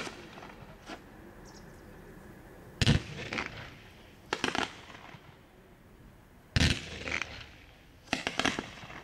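Aerial fireworks bursting: a loud bang about three seconds in, a quick pair at about four and a half seconds, another bang near seven seconds and a rapid cluster of three or four near the end, each with a short echo.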